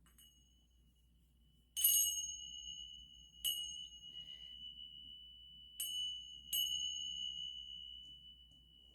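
A small high-pitched metal chime struck four times, about two seconds in, then near three and a half, near six and just after, each strike ringing on as one steady pure tone that slowly fades. It is rung to clear the space before the reading.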